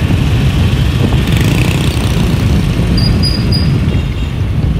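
Steady motorbike road noise from riding along a street: an engine running under a heavy rumble of wind on the microphone. A few faint, short high beeps come about three seconds in.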